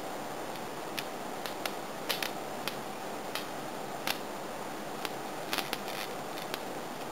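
Electric bug zappers snapping as insects hit the charged grids: more than a dozen short, sharp cracks at irregular intervals, sometimes two or three close together, over a steady background hum.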